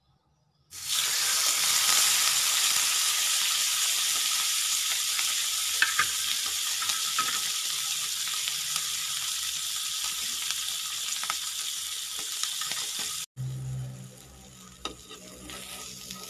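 A whole fish frying in hot oil in a nonstick pan: a loud sizzle starts about a second in as it goes into the oil, then slowly eases off. Near the end it cuts off suddenly to a quieter sizzle with light scrapes and clicks as a metal spatula turns the fish.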